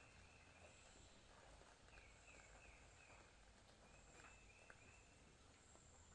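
Near silence: faint background hiss with a few faint, short, high chirps.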